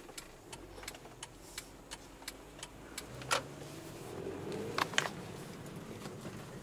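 Car heard from inside the cabin, engine idling and then pulling away, its hum growing and rising in pitch about three seconds in. A light, steady ticking about three times a second runs under it.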